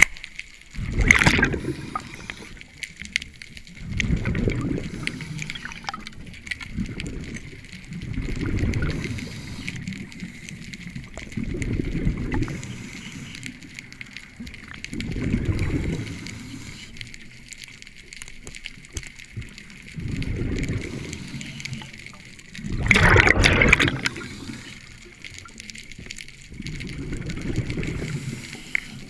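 Scuba diver breathing through a regulator underwater: exhaled bubbles gurgle out in regular bursts, one breath roughly every four seconds, two of them louder and hissier.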